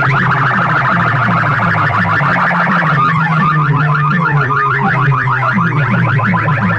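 Hard-bass DJ competition music played loud through a large speaker-box sound system: a fast, alarm-like warbling electronic tone over a pulsing heavy bass line. The warble thins out and changes about three seconds in.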